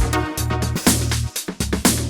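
Electronic dance music with a steady four-on-the-floor beat and a heavy bass line.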